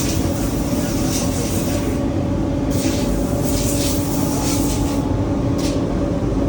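Industrial machinery running with a steady hum, with several short bursts of hiss over it.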